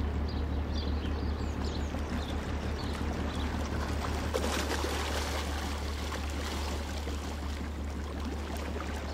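Steady low engine hum of a passing small cargo ship, with water washing along its hull growing stronger about halfway through. Small birds chirp a few times in the first two seconds.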